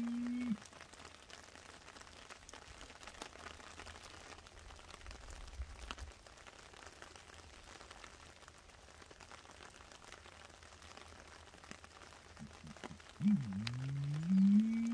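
Light rain pattering faintly on leaf litter. At the very start, and again from about 13 seconds in, a loud low humming call holds a steady pitch, broken by quick dips, and then slides upward.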